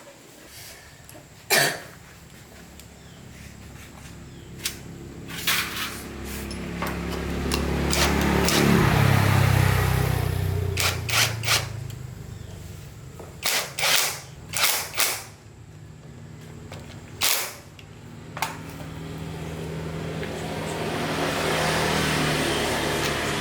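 A motor with a low, pitched hum builds up and dies away twice, with sharp clicks and metal knocks in between.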